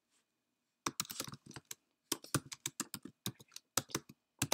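Typing on a computer keyboard: rapid runs of key clicks, starting about a second in.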